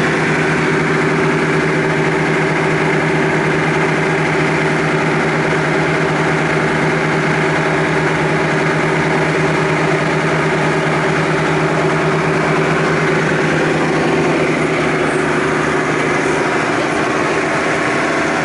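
Tour boat's engine running steadily under way, a constant drone with the rush of the churning wake.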